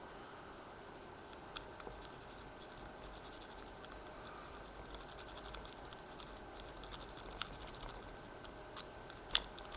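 Faint scratching and light metallic clicks of a Bogota rake and tension wrench working inside a Chateau C99X disc lock as it is raked, with one sharper click near the end.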